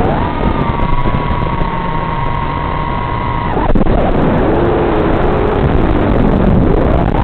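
FPV quadcopter's brushless motors whining over a steady hiss: the pitch jumps up to a high, steady whine as the throttle is punched for a climb, holds for about three and a half seconds, then drops suddenly to a lower, wavering tone as the throttle comes off, rising again near the end.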